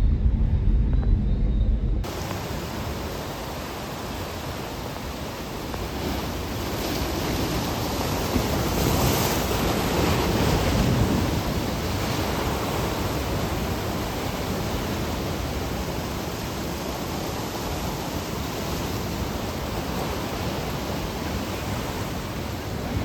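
Sea surf washing in a steady hiss with wind on the microphone, a wave swelling and breaking several seconds in. It is preceded by a low rumble that cuts off abruptly about two seconds in.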